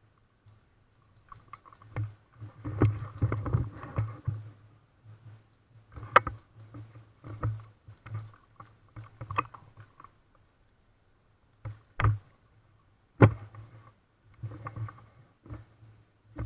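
Movement and handling noise on an airsoft player's camera: irregular rustling and dull thumps, with a few sharp cracks, the loudest two near the end.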